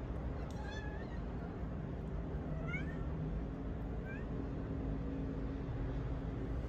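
Kitten mewing: three short, high, rising mews, faint, about a second, three seconds and four seconds in, over a steady low background hum.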